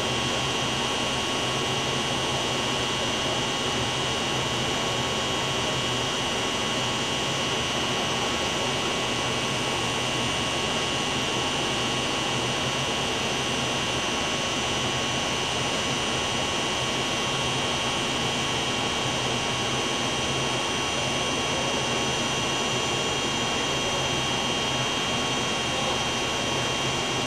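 Steady machinery noise: a constant rushing hum with a steady high whine running through it.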